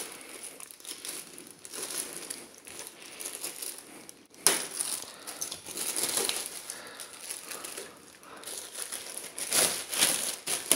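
Packaging cover crinkling and rustling as it is pulled off a voltage stabilizer, with sharper crackles about four and a half seconds in and again near the end.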